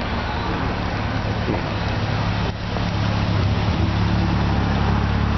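Toyota A63 Celica 1600GT-R's 4A-G twin-cam four-cylinder idling steadily through a Fujitsubo aftermarket muffler, growing louder about three seconds in.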